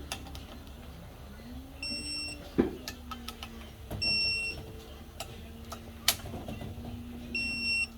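An electronic beeper sounding three times, each a high half-second beep about two to three seconds apart: a digital torque wrench signalling that each crankcase bolt has reached its set torque. Scattered clicks and knocks of tools on metal sound between the beeps.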